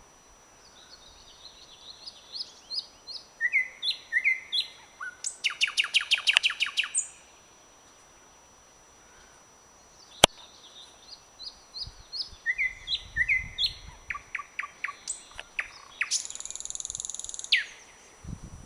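Thrush nightingale singing: two song phrases with a pause of about three seconds between them, each building from short repeated notes into a fast, loud rattling series of clicks, the second ending in a long harsh buzzing note. A single sharp click comes about ten seconds in.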